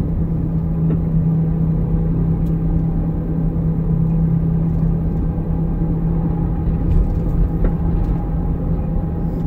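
Car running at driving speed, heard from inside the cabin: a steady low rumble of engine and road noise with a constant hum.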